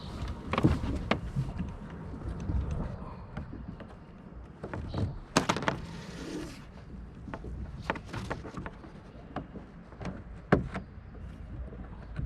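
Scattered knocks and clunks of gear being handled aboard a fishing kayak, over a low steady rumble. The loudest knocks come about five and a half and ten and a half seconds in.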